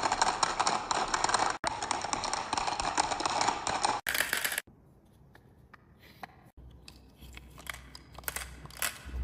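Marbles clattering and rattling along a wooden marble run: a dense run of small hard clicks for about four seconds, then after a sudden cut only scattered light clicks with a faint low rumble.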